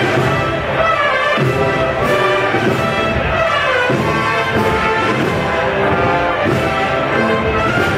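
Band music led by brass instruments, playing a march steadily and loudly, the kind of band that follows a religious procession's float.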